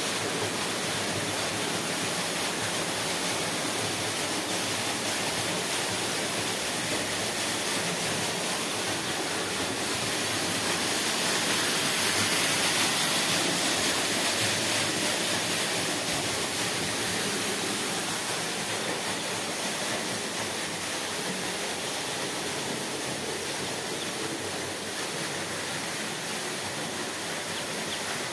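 Borewell water gushing from a pipe outlet and pouring down into the water of an open dug well: a steady rushing splash, a little louder about halfway through.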